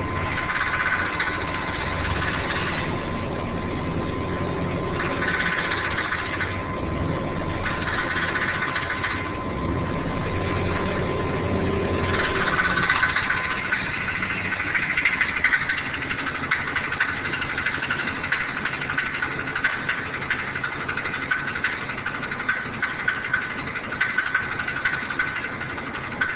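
Engine idling with the 4L80E automatic transmission attached, making a rapid metallic ticking rattle: the bad noise of a cracked flexplate, possibly with torque converter trouble. About twelve seconds in, the low engine rumble drops back and the sharp ticking becomes the loudest part.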